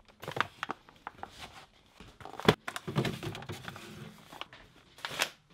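Food being taken out of an open fridge: scattered knocks, clicks and rustles of items on the shelves and a cardboard-sleeved ready meal being handled, with sharp knocks about two and a half seconds in and again near the end.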